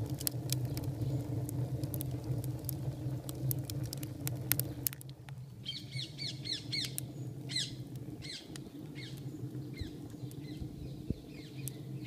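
Wood fire crackling in a rocket stove's feed tube, a quick scatter of sharp clicks over a low steady hum, fading after about five seconds. Birds then chirp in runs of short falling calls, twice.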